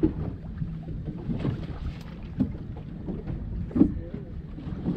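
Wind buffeting the microphone on an open boat, with a steady low rumble and a few short knocks. The loudest knock comes near the end.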